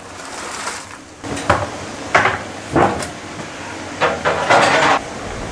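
Wooden bushel basket knocking and scraping among live blue crabs in a wooden bin as the crabs are scooped up: a string of about five sharp knocks and clatters, the last one drawn out near the end.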